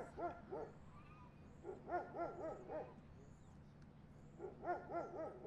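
A small dog yapping in three quick runs of four or five short barks, spaced about two seconds apart.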